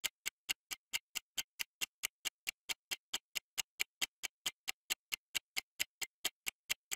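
Countdown timer's ticking sound effect: sharp, evenly spaced ticks, about four a second.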